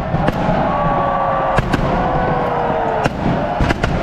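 Firecrackers and whistling fireworks going off inside the burning Böögg, the snowman effigy packed with explosives: sharp irregular bangs, several close together about a second and a half in and again near the end, over slowly falling whistles.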